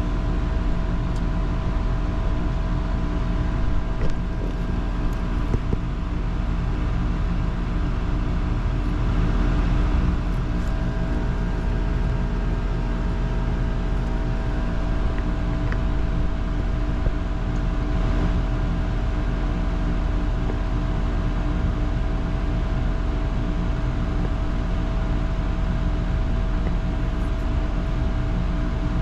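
Outdoor air-conditioner condensing unit running steadily: a compressor and condenser-fan hum with several steady tones over a low rumble.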